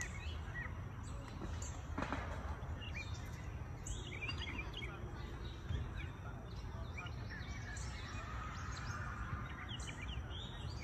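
Small birds chirping and calling over a steady low outdoor rumble.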